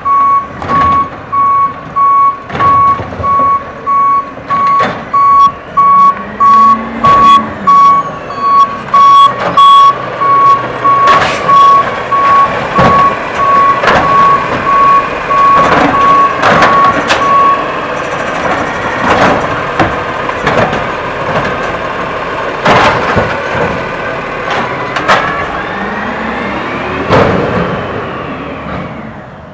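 Garbage truck backup alarm beeping a little more than once a second as the truck reverses, stopping about two-thirds of the way in. Over it, the automated side-loader arm's engine and hydraulics run up while the arm grabs, lifts and dumps a plastic trash cart, with repeated bangs and clatter from the cart and its contents; near the end the truck's engine runs up as it moves off.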